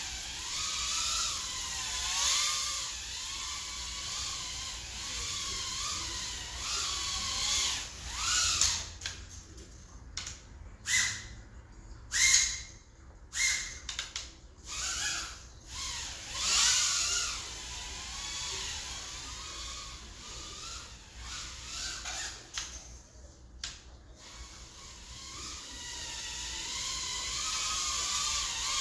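Mobula6 tiny-whoop FPV drone's brushless motors whining, the pitch wavering up and down with the throttle. Through the middle stretch come a run of short, sharp throttle punches, each a brief louder surge that cuts off suddenly.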